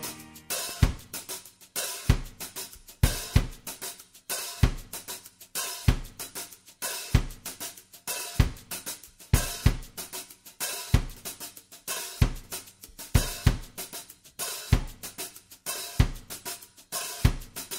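Background music down to a drum kit alone: a steady beat of bass drum, snare and hi-hat with cymbals.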